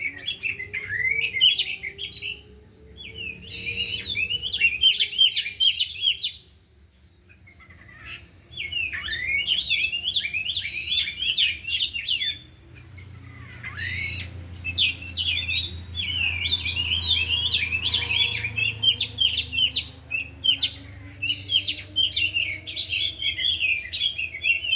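Oriental magpie-robins (kacer) singing: fast, varied runs of high chirps and whistles, delivered in long phrases with short pauses about two and a half seconds in and again from about six to eight and a half seconds. The birds are running through their mimicked repertoire (isian).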